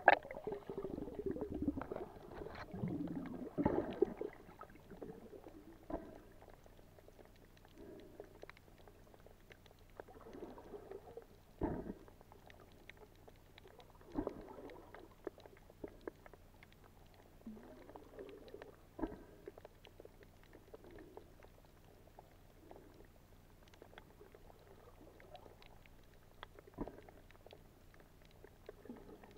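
Muffled underwater sound from a camera held under shallow water: bubbling and churning water for the first few seconds, then a faint background with scattered short clicks and knocks.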